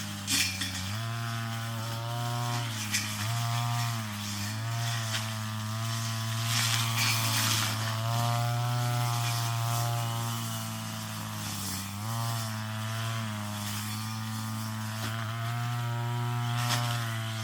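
Brush cutter engine running at high revs, its pitch dipping and recovering several times as the cutting head takes on weeds, with a few sharp ticks of cutting or debris strikes.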